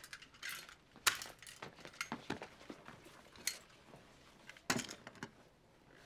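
Small clicks, clinks and rattles of a red fire-alarm pull handle being fumbled with in the hands, in several short separate bursts.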